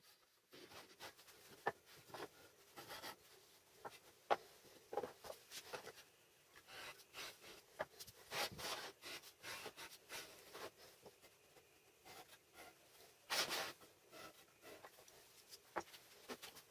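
Quiet, irregular hand work on wooden parts: light scratching, rubbing and small clicks and taps, with a louder scrape about thirteen seconds in.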